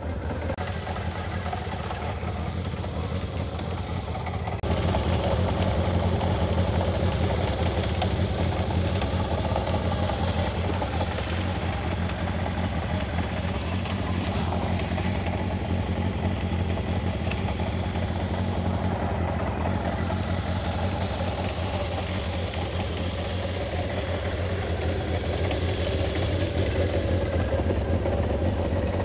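Kawasaki Zephyr 750's air-cooled inline four-cylinder engine idling steadily and smoothly, its carburettors freshly resealed and adjusted. It gets louder about five seconds in.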